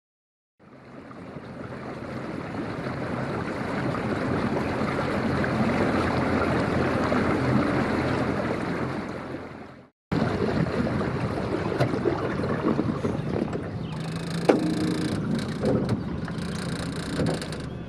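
Small fishing boat under way: an outboard motor running under water and wind noise, fading in after a moment of silence. After a sudden break about ten seconds in, the motor and water noise go on with a few knocks and clicks, one sharper than the rest.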